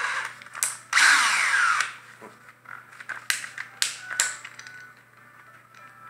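A cordless drill's motor runs in two short bursts while a spade bit is tightened into its keyless chuck. The second burst falls in pitch as the motor winds down. A few sharp clicks follow.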